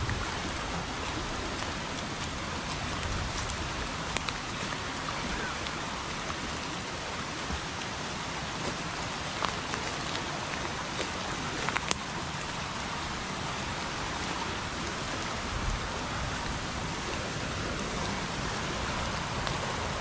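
Heavy rain falling steadily, a dense even hiss with a few sharper drop ticks scattered through.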